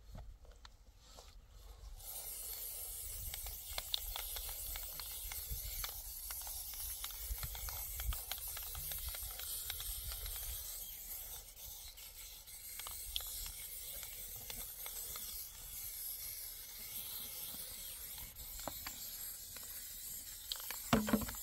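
A steady hiss that comes in about two seconds in, with scattered light scraping and tapping of a hand tool working on the cement oven's painted metal door.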